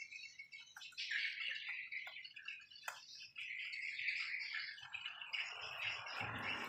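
Small birds chirping and twittering continuously, with a few light clicks as parts of a disassembled inkjet printer are handled. Towards the end a rushing noise swells in underneath.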